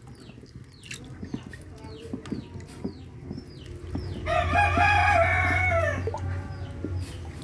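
A rooster crows once, about four seconds in: a loud call of nearly two seconds that drops in pitch at its end. Around it, short high chirps repeat about twice a second, along with small clicks and splashes from the turtles feeding in the water.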